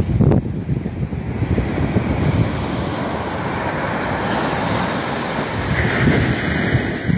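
Rough sea surf breaking and rushing up a sandy beach, a steady loud wash of waves, with wind gusting on the microphone near the start.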